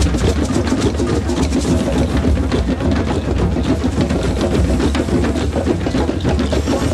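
A drum circle of many hand drums playing together: a dense, steady rhythm of rapid strikes.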